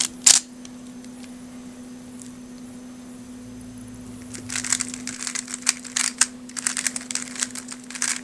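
A 3x3 speed cube being turned by hand, its plastic layers clicking. A few quick turns at the start, then after about four seconds a fast, dense run of clacking turns.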